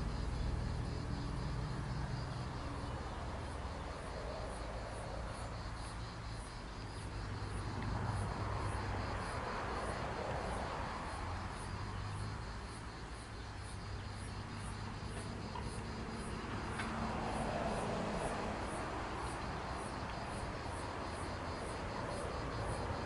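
Insects chirping steadily over a low background rumble, with a faint regular ticking about one and a half times a second. The rumble swells twice.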